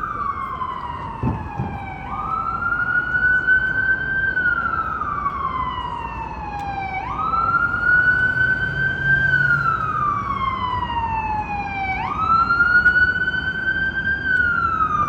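Emergency vehicle siren on wail, sweeping slowly up and down about every five seconds, three times over, above a steady rumble of city traffic.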